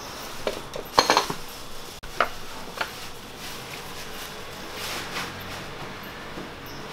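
A few light metallic clinks and knocks of tools and parts being handled at the engine's crankshaft damper pulley, reached through the wheel well, the sharpest about a second in, over a faint steady hiss.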